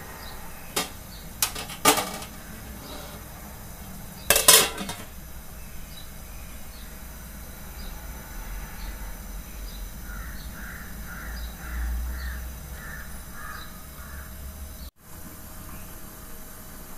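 A flat aluminium lid clanks against the rim of an aluminium cooking pot as the pot is covered: a few sharp clinks in the first two seconds, then the loudest clatter about four and a half seconds in. Later comes a run of about eight short, evenly spaced calls.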